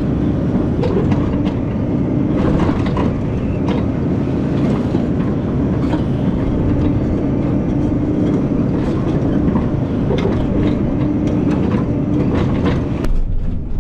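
Diesel engine of a Takeuchi TB2150 excavator running hard while digging, with frequent knocks and scrapes of the bucket in rocky ground. A whine grows stronger around the middle.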